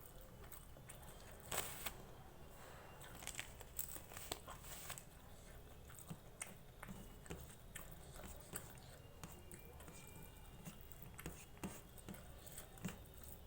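Close-miked eating of rice and vegetable curry: soft chewing with many small wet mouth clicks, the loudest about a second and a half in.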